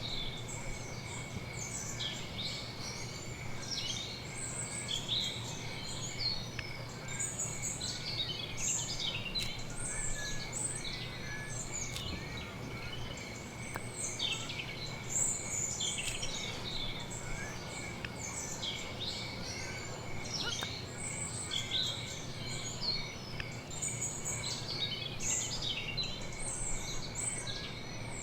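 Many small birds chirping and twittering without a break, over a steady high-pitched tone and a low hum.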